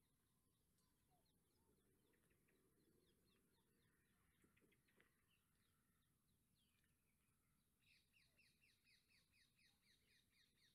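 Near silence with faint birdsong: scattered small chirps, then, near the end, a bird repeating quick downward chirps about three or four times a second.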